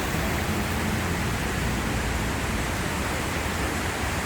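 Steady roar of the Iguazu Falls waterfalls, a loud, even rush of falling water.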